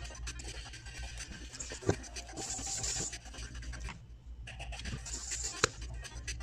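Hands rubbing and scraping a ball of bread dough around a stainless steel bowl, with two sharp clicks, about two seconds in and near the end, over a steady low hum.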